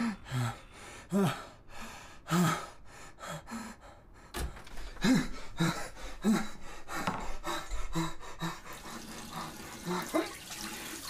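A string of short gasps and grunting breaths, each sliding in pitch, with a hissing, watery noise coming in about four seconds in.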